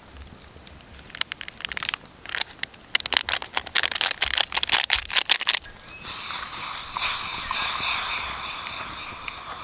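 Plastic sachet crinkling and rustling as it is opened and emptied into a steel mug, then a steady pour of milk from a pouch into the mug for the last few seconds.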